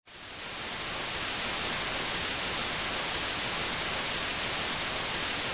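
Steady hiss of TV-style static, like an untuned set, swelling in over the first second and then holding level, with no tones or rhythm.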